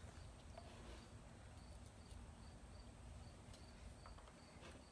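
Near silence with faint, regularly repeating high chirps, about three a second, as of a cricket, and a few light clicks from PVC pipe fittings being handled.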